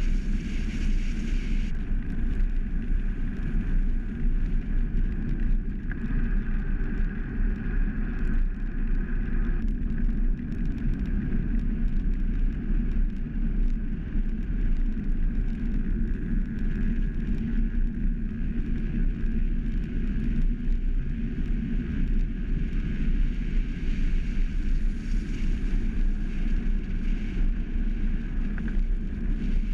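Steady low rumble of a velomobile rolling along an asphalt road at speed: tyre noise and wind buffeting the microphone.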